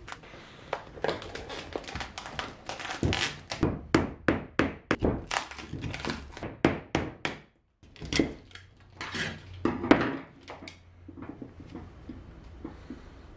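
Sharp cracks and snaps, several a second, as a hand tool pries and chips hardened resin and plastic wrapping off a cast block of coloured pencils. There is a brief break just before the middle, and quieter handling after it.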